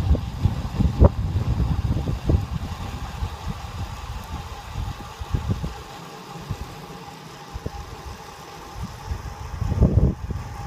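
Wind buffeting the microphone of a camera riding on a moving recumbent bicycle: gusty low rumbles over a faint steady hum, easing off midway and picking up again near the end.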